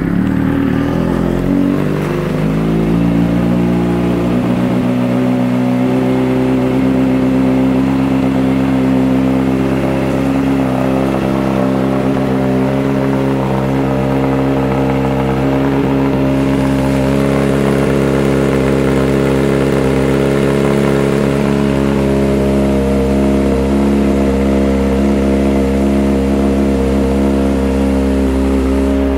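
2014 Kawasaki Ninja ZX-6R 636's inline-four engine, fitted with a Two Brothers Silver Series exhaust, idling steadily right after start-up; the revs settle down slightly over the first few seconds, then hold even.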